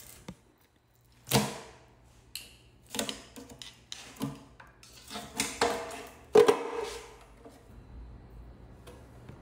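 A series of sharp metal clanks and knocks, several in all with a short ring after some, the loudest about six and a half seconds in: tools and parts being handled during a rotary engine teardown.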